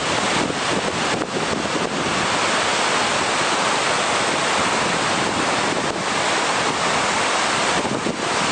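Glacial meltwater waterfall, a steady rush of falling water.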